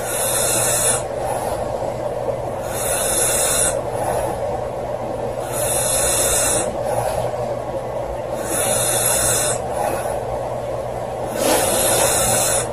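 A woman snoring, each snore breathy rather than a clear tone, coming about every three seconds, five times in all, over a steady background hiss.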